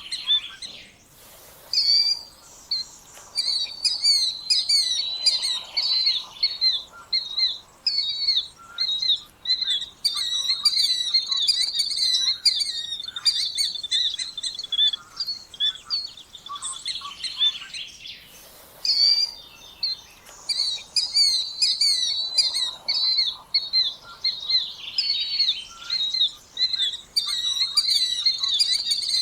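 Killdeer calling: shrill, high notes repeated rapidly in long runs, broken twice by a short pause.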